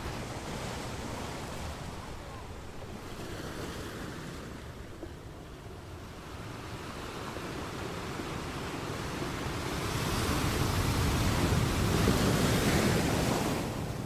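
Ocean waves crashing against rocks on a beach. The surf swells louder through the second half and falls away sharply near the end.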